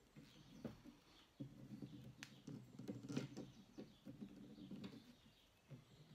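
Faint, irregular clicks and rustles of chicken wire being handled and joined by hand.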